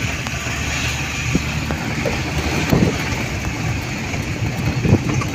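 A vehicle driving on a hill road, heard through its open side window: steady engine and tyre noise with wind gusting on the microphone.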